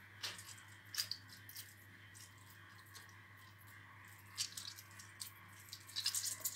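Soaked raw minced beef squeezed by hand in a mesh sieve: quiet wet squelches with water dripping out, in a few short bursts, the sharpest about a second in and near the end.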